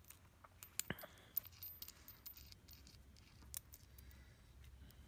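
Faint small metal clicks and light scratching from a bolt, washers and nut being handled and fitted by hand, with a cluster of sharp ticks about a second in.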